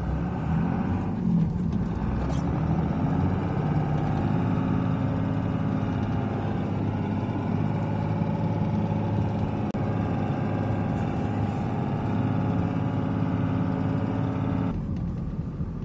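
A vehicle's engine pulling hard as it ploughs through deep snowdrifts. It revs up about a second in, holds a steady, labouring note, and eases off near the end.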